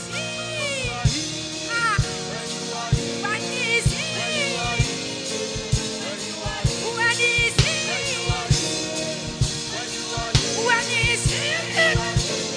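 Live gospel praise-band music: a drum kit beats steadily and often under a melody line that slides up and down.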